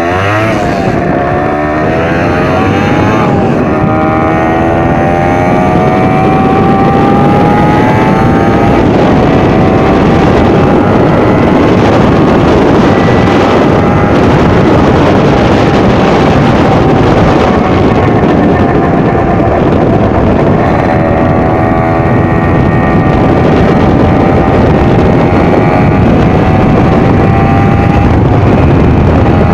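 Yamaha DT 125's two-stroke single-cylinder engine riding along. Its pitch climbs and drops back twice in the first ten seconds as it is shifted up through the gears, then holds, eases off and climbs again.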